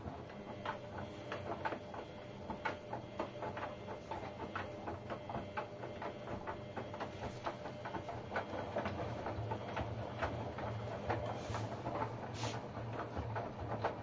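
LG Direct Drive 6 kg front-loading washing machine tumbling a load in the wash cycle: water sloshing and wet clothes slapping and knocking in the turning drum, over a low motor hum.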